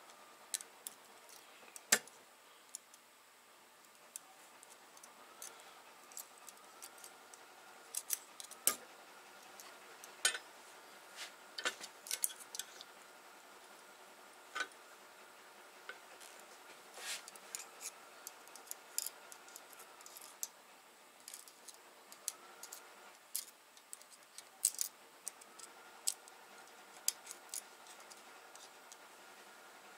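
Irregular small metallic clicks and ticks of hand tools working a valve spring compressor and setting valve keepers on a 12-valve VR6 cylinder head. Underneath is a faint steady hum.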